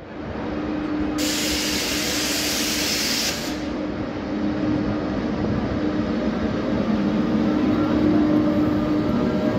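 ZSSK class 361 electric locomotive rolling slowly into the station hauling passenger coaches, with a steady hum and rail rumble that grows louder as it draws near. About a second in, a loud hiss lasts about two seconds.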